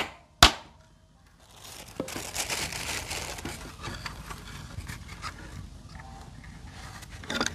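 Two sharp knocks close together, then a few seconds of crinkling, rustling handling noise with scattered small clicks.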